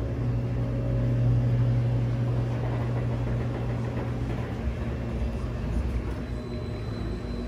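Steady low hum with a faint hiss from a dry hydromassage bed's water-jet pump running.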